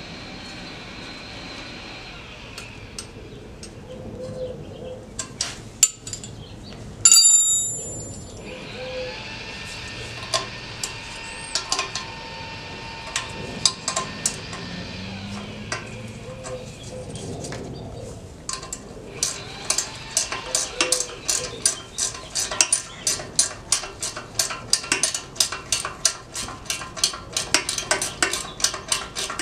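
Wrench clicking and clinking against steel as nuts are run down on SR20DET exhaust manifold studs to seat them. The clicks are scattered at first, with one loud metallic clank about seven seconds in, then become a fast, steady run of clicks over the last third.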